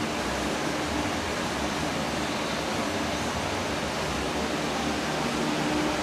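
Electric fan running: a steady rush of moving air with a faint low hum underneath.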